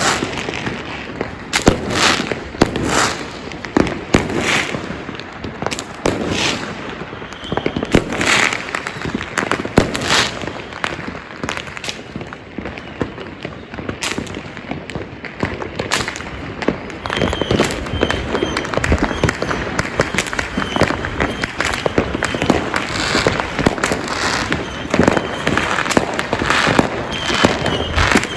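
Many fireworks and firecrackers going off at once: a dense, continuous crackle with a loud bang every second or two.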